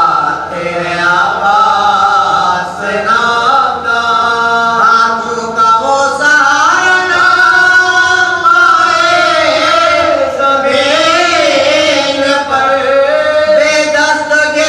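A man's voice chanting a mournful Urdu lament in long, drawn-out melodic phrases, holding and bending each note.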